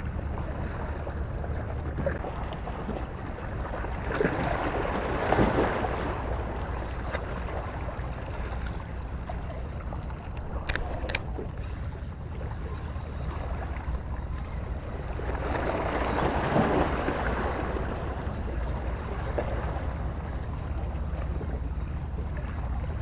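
Wind rumbling on the microphone over small sea waves washing against the shore, the wash swelling twice, with a couple of faint light clicks about halfway through.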